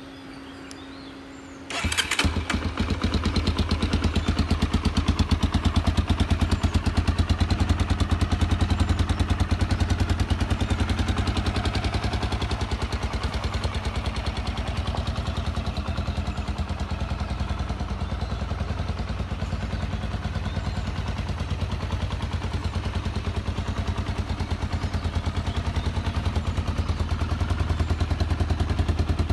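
Honda AX-1 motorcycle's electric starter whirs briefly, then about two seconds in the single-cylinder engine fires and runs steadily at idle, started on a starter motor freshly fitted with new carbon brushes and a refaced commutator.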